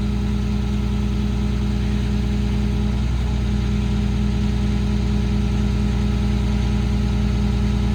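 PACCAR PX-6 six-cylinder diesel of a Kenworth T370 running steadily at raised idle to power the crane's PTO hydraulics.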